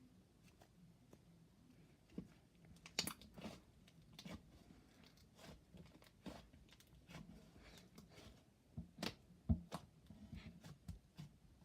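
Clay slime of white glue, shaving cream and air-dry clay being squished and stretched by hand, giving off faint, irregular little pops and crackles as air bubbles are worked into it, a few louder ones about three seconds in and again around nine seconds.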